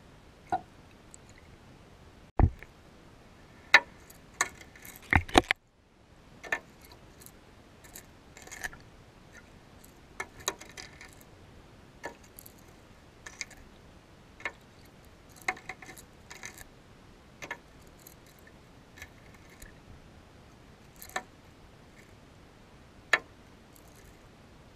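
Irregular sharp clicks and knocks, about one a second, over a faint hiss, picked up by a camera under water. The loudest come in the first five or six seconds.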